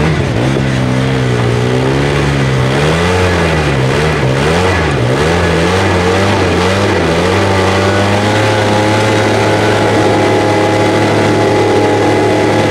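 Polaris RZR side-by-side's engine revving up and down under load as it climbs a steep rock-and-dirt slope, then held at a steady, higher rev from about eight seconds in.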